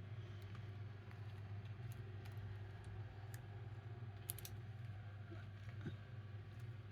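Faint small clicks and sticky crackles of slime being handled and pulled off fingers, scattered irregularly over a steady low hum.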